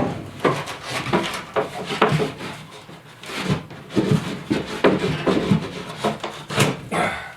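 Plywood piece being pushed and wiggled into place against a wooden floor joist, wood scraping and knocking in a string of irregular knocks and scrapes.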